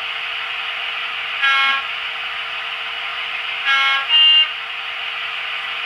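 Model train sound decoder playing a diesel horn through its small speaker: three short blasts, one about a second and a half in, then a lower-then-higher pair near four seconds. A steady hiss runs under them.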